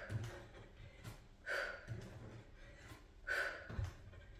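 A woman's sharp, forceful exhales, one with each kickboxing strike, coming about every two seconds. A soft low thump comes near the end.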